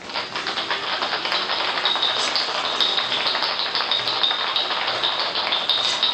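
Ice rattling hard inside a cocktail shaker being shaken, a fast, continuous clatter with no break.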